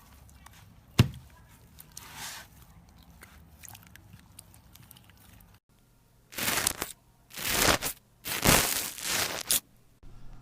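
Slime being handled: one sharp click about a second in, then in the second half four loud, noisy squishes of slime being pressed and pulled.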